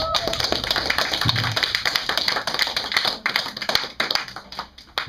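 A small audience clapping at the end of a song. The applause thins out to a few scattered claps over the last couple of seconds.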